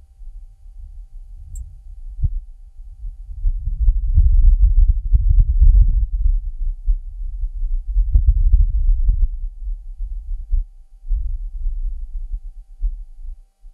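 Martian surface audio from the Perseverance rover's microphone: a low, gusting rumble that swells and fades, with scattered crackles and pops, loudest about four to six seconds in and again around eight to nine seconds.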